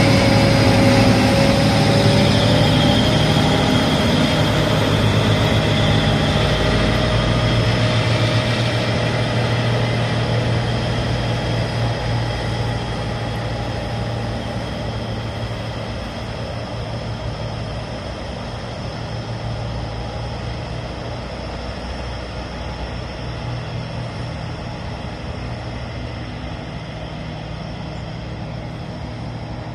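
Class 774 diesel-electric locomotive running as it hauls a loaded coal freight train away: a steady low engine drone with a faint whine above it, gradually fading.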